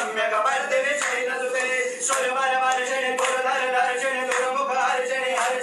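Men chanting a Hindu prayer together during a Shiva puja, in long held tones that glide from note to note, with a few sharp clicks through it.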